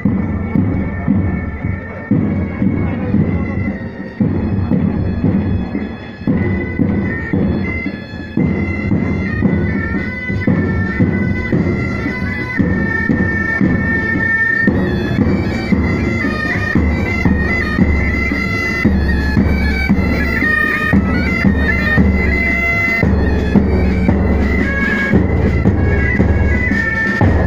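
Military pipe band playing a march: bagpipe melody over a held drone, with drums beating time that grow heavier about halfway through.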